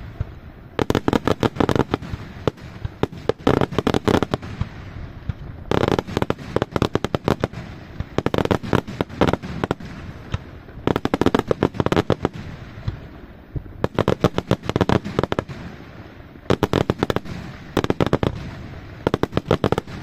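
Daytime fireworks display: aerial shells bursting in rapid strings of sharp bangs, in waves a few seconds long separated by brief lulls.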